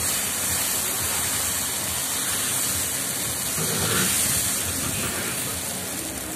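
Dosa batter sizzling on a hot pan, just poured and spread with a ladle: a steady hiss that eases slightly near the end.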